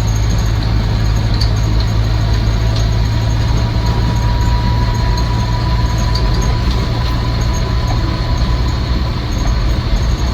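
Cabin sound of a Land Rover Series IIa 109's 2.25-litre four-cylinder petrol engine and drivetrain at steady road speed: a constant loud drone, with a faint gearbox whine in the middle and a few light rattles.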